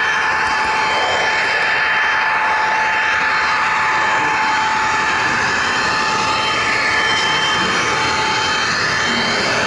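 HO scale model train rolling along the track, heard close up from a camera riding on the train: a steady, loud rushing rattle of wheels on rail with a constant high whine over it.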